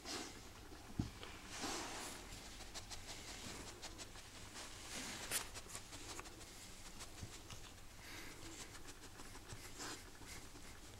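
A pet animal sniffing and snuffling: quiet, short breathy bursts a second or several apart, with faint rustling and small clicks between them.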